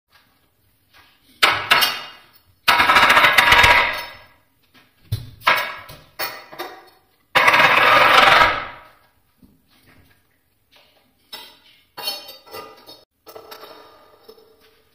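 Kitchen knife cutting through fresh cucumber on a cutting board. There are several sudden crisp cuts, two of them long crunching strokes lasting over a second. A run of lighter, quicker cuts and taps on the board follows near the end.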